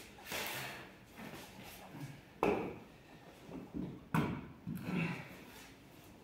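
A Lada Niva's steel wheel with a mud-terrain tyre being manhandled against a van's wheel hub: scattered clunks and scrapes, with two louder sharp metallic knocks about two and a half and four seconds in.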